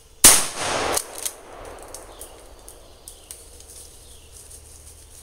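A single loud gunshot about a quarter second in, a sharp crack that rings on for about a second. It is fired up into a pine to scare a treed squirrel into moving.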